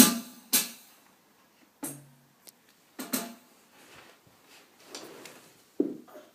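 Roland TD9-KX2 electronic drum kit struck unevenly by a child: two quick hits at the start, a pitched drum hit about two seconds in, another hit around three seconds, and a last one near the end, with gaps between them.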